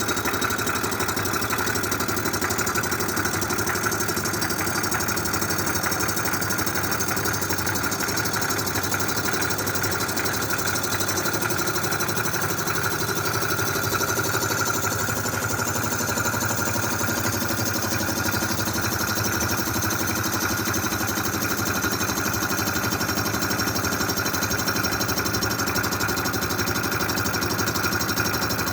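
Cylinder head surfacing machine running steadily while it faces the rusty exhaust side of an Oldsmobile V8 cylinder head, taking a cut of about thirteen thousandths of an inch.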